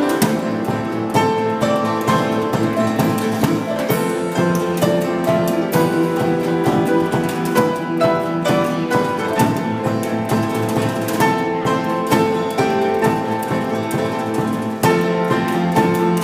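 Live instrumental trio music: upright double bass, a drum kit with cymbal and drum strokes, and piano playing a steady melodic tune.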